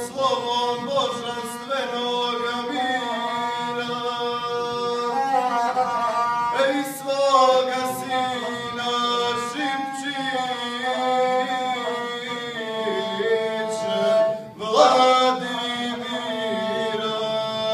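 A male guslar sings a Serbian epic song in a chanted, declamatory style to his own accompaniment on the gusle, a single-string bowed folk fiddle. The voice and the bowed string run together in long phrases, with a brief break about fourteen seconds in before the voice comes back loudly.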